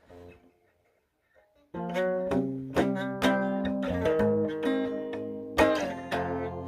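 Guitar playing a slow blues, starting about two seconds in: plucked notes and chords struck one after another, each left to ring.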